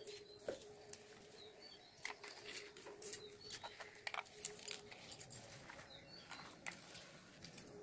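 Knife tapping irregularly on a wooden cutting board as green vegetable stalks are chopped, with bird chirps now and then and a faint steady hum.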